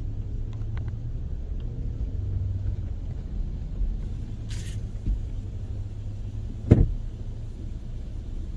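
Steady low rumble of a car's engine and road noise heard inside the cabin, with one sharp thump about two-thirds of the way through and a brief hiss a little past the middle.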